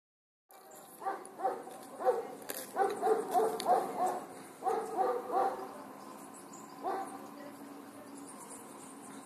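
An animal calling: a series of short calls in quick clusters, the last about seven seconds in, over faint steady outdoor background noise.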